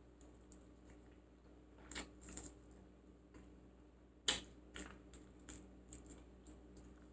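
Close-miked eating sounds: irregular short clicks and smacks of chewing, the loudest a little past four seconds in, followed by a run of smaller clicks.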